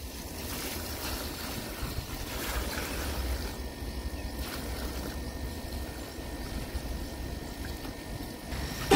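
Water poured from a plastic bucket, splashing steadily into a muddy puddle in a freshly dug soil basin.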